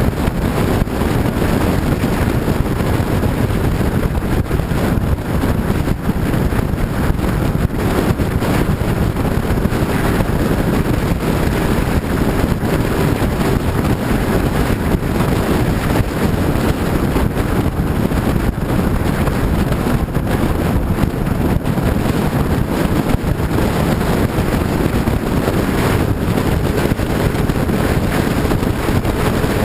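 Heavy wind buffeting the microphone over a steady low rumble, with a faint steady hum underneath.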